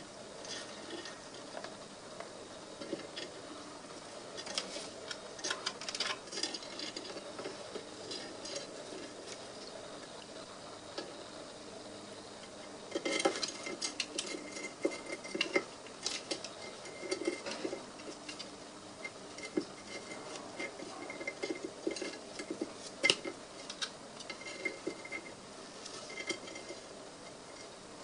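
A cockatiel's claws and beak scratching, tapping and clicking against a wooden birdhouse and a plastic bowl as it climbs, in irregular small clicks that grow busier and louder about halfway through.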